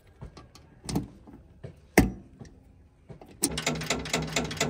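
A few knocks and one loud, sharp thud, then about three and a half seconds in a machine starts running with a rapid, even clatter.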